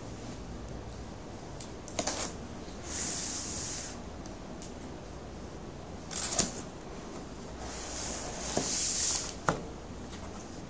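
Paper and packaging being handled while a laptop box is unpacked: rustling in two stretches, with a few sharp clicks and knocks.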